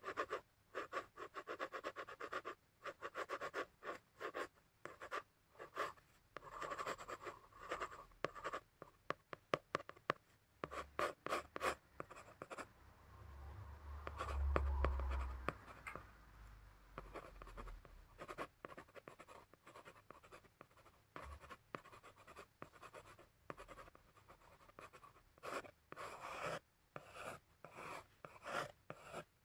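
Pencil and pen tips scratching across drawing paper in quick, repeated strokes. A brief low rumble comes about halfway through.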